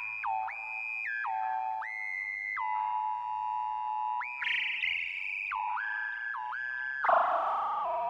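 Background music: a synthesizer melody of held notes that glide from one pitch to the next, getting brighter and louder about seven seconds in.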